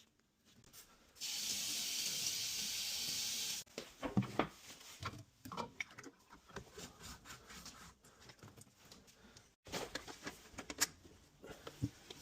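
A spray hissing steadily for about two and a half seconds, starting and stopping abruptly, as in cleaning during a boiler service. It is followed by scattered clicks, knocks and rubbing as parts and tools are handled.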